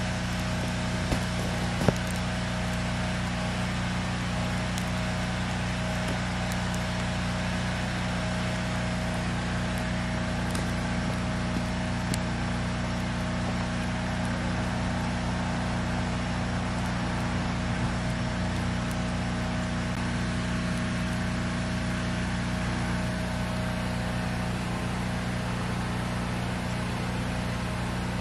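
A motor running steadily with a constant low hum and a faint higher steady tone, with a few faint clicks over it.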